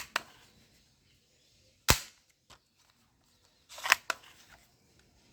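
Toy gun firing: sharp shot-like cracks with quiet between, a loud single one about two seconds in and a quick group of two or three around four seconds.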